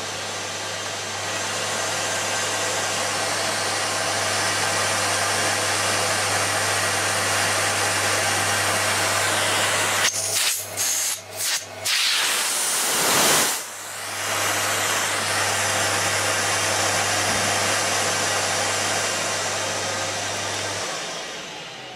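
Miele Revolution 500 cylinder vacuum cleaner running steadily with a loud rush of air. About halfway through the airflow sound breaks up and dips several times. Near the end it winds down with a falling whine.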